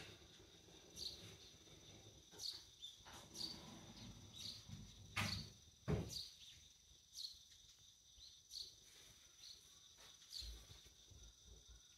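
Faint, scattered taps and rustles of a cat stepping about on an open suitcase and the clothes packed in it, with two louder knocks a little after five and six seconds in. A faint steady high-pitched whine lies underneath.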